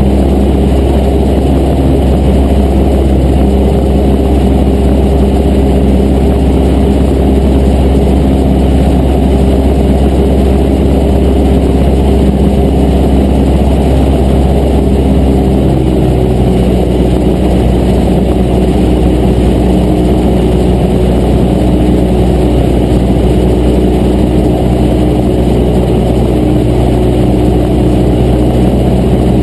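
Cessna 152's four-cylinder Lycoming engine and propeller droning steadily in cruise flight, heard from inside the cabin.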